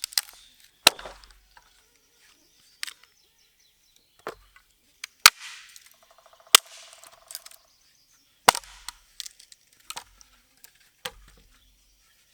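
Wood being chopped: sharp single strikes every second or two at an uneven pace, some with a dull thud beneath.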